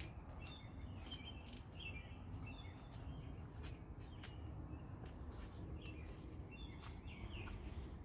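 Faint outdoor ambience: small birds chirping in short repeated calls over a steady low rumble, with a few scattered faint clicks.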